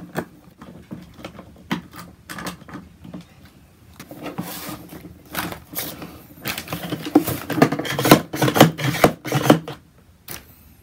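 Irregular clicks, knocks and rattles of hard plastic being handled on a Hozelock hose reel: a screwdriver working in its top handle, then the hose end and reel case being moved about, busiest and loudest over the last few seconds before stopping near the end.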